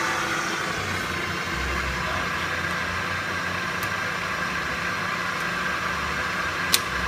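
Lagun FTV-3 vertical milling machine's 3-horsepower head running steadily at the top of its high speed range while the power quill feed drives the quill down. A single sharp click comes near the end.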